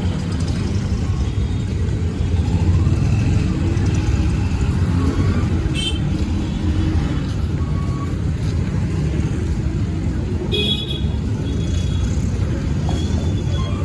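Steady low rumble of vehicle traffic, with two short horn toots, one about six seconds in and one near eleven seconds.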